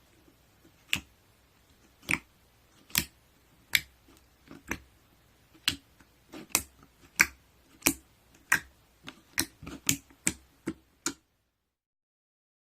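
A series of sharp clicks or taps, roughly one a second at first and coming faster toward the end, then the sound cuts off abruptly about eleven seconds in.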